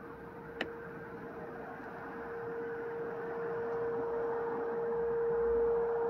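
Federal Signal 2001-130 rotating outdoor warning siren sounding its steady alert signal: one unbroken tone held at the same pitch, slowly growing louder. A single sharp click a little over half a second in.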